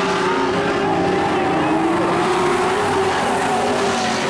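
Several dirt-track race trucks running at speed around the oval, their engines overlapping, with pitches that rise and fall as they go through the turns.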